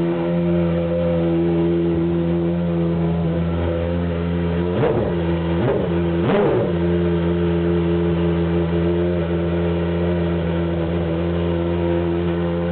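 Peugeot 905's 3.5-litre V10 race engine running steadily at idle, with three quick throttle blips, each a short rise and fall in revs, about five to six and a half seconds in. The engine runs evenly, "comme une horloge".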